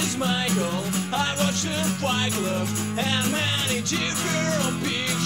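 Outro music: a song with a singing voice over guitar accompaniment.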